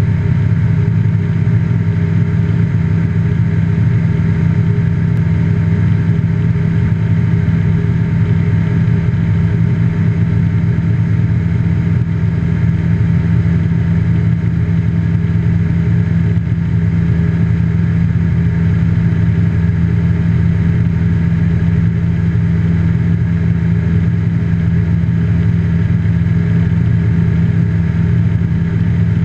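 Just Aircraft Highlander's engine and propeller droning steadily in flight, heard from inside the cockpit.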